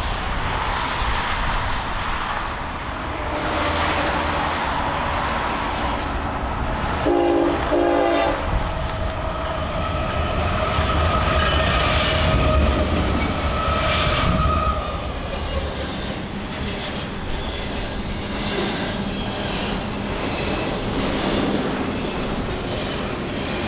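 Union Pacific double-stack intermodal train coasting downhill past. A short horn chord sounds about seven seconds in. The locomotives then rumble past, followed by the rhythmic clatter of the loaded well cars' wheels.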